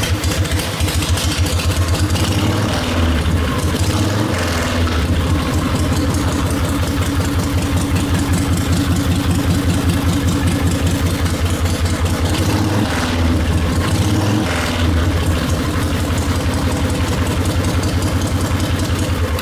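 Stroked 74 cubic inch Harley-Davidson V-twin running through Chattanooga Scrambler twin-stack exhaust pipes: it idles with a loud, steady beat, and the throttle is blipped twice, a few seconds in and again past the middle.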